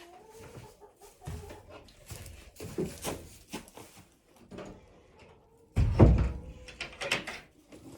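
Knocking, rustling and handling noises inside a chicken coop while eggs are being gathered, with a single heavy thump about six seconds in, like a door or lid banging shut.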